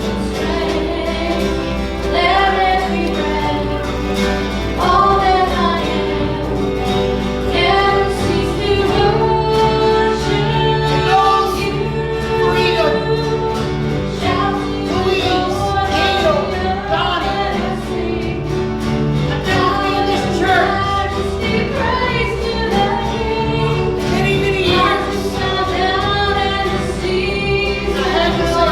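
Gospel song sung by a group of voices, female voices among them, over sustained instrumental accompaniment.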